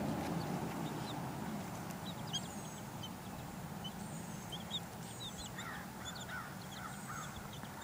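Young chicks peeping in short, high, scattered chirps, starting about two seconds in, over a steady low background noise.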